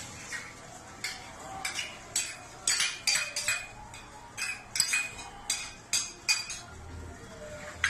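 Steel spoon clinking and scraping against stainless-steel bowls in a string of irregular strokes, some ringing briefly, as curd is spooned out of a small bowl into the semolina mix.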